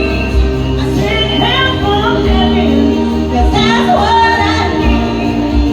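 A song with a female lead vocal over a full backing track with a steady beat.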